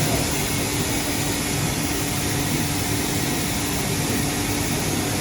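Junker Quickpoint 5000/40 CNC cylindrical grinder running: a steady mechanical hum with one constant tone and no change throughout.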